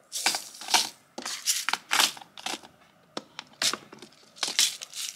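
Small plastic packets crinkling and rustling as they are handled, in about a dozen short, irregular bursts.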